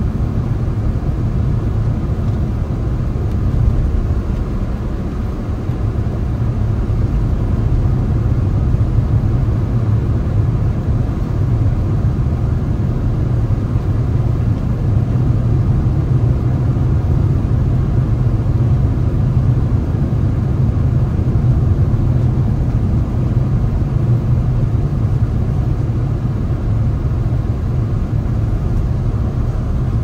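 A car on the move, with a steady low rumble of engine and road noise.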